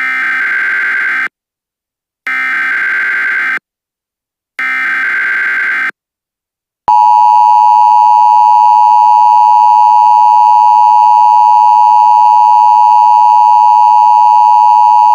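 Emergency Alert System tones: three short bursts of the SAME data header, about a second apart. About seven seconds in, the loud, steady two-tone EAS attention signal begins.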